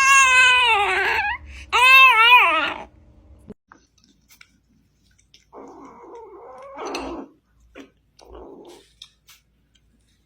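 Cat meowing: two long, loud meows in the first three seconds, bending in pitch, then fainter, rougher sounds later on.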